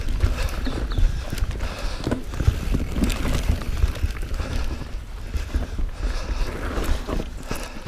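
Mountain bike riding fast down a dirt forest trail: wind buffeting the camera microphone with a low rumble, tyres on the dirt, and the bike rattling over bumps with frequent clicks and knocks.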